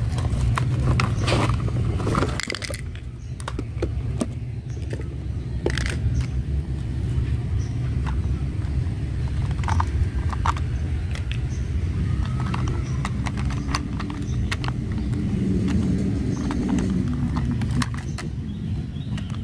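Cardboard box being opened and plastic toy plane parts handled: scattered clicks, rustles and scrapes, thickest in the first few seconds, over a steady low rumble.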